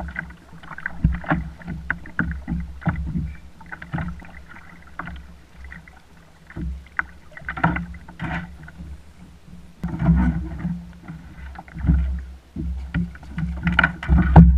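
Wind buffeting the microphone and water slapping against a plastic kayak hull, with irregular clicks and splashes as a hooked fish is reeled in and brought alongside the kayak. The loudest gusts and splashing come about ten seconds in and again near the end.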